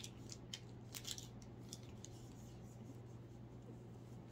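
Faint crinkles and clicks of a plastic snack wrapper being handled, a handful of short sharp ones in the first two seconds or so, then quieter.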